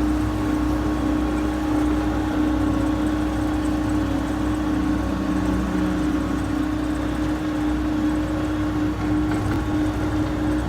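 Skid loader engine running steadily, a constant hum over a low rumble.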